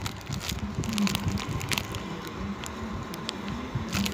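Handling noise of small objects and plastic packaging: scattered light clicks and crackling, over a steady low hum.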